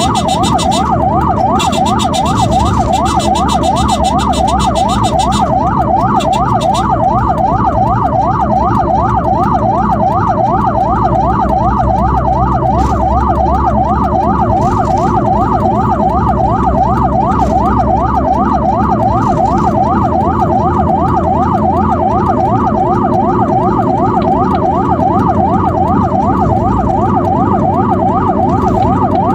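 Ambulance siren in a fast yelp, its pitch sweeping up and down about three times a second without a break, over steady road and engine noise.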